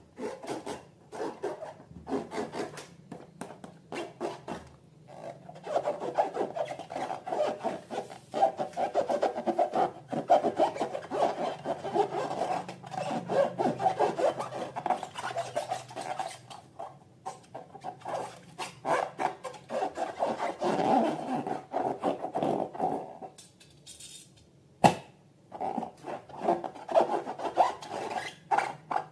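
Rapid, rhythmic rubbing and squishing of slime being worked by hand with balloons. There is a brief pause about 23 seconds in, then a single sharp click.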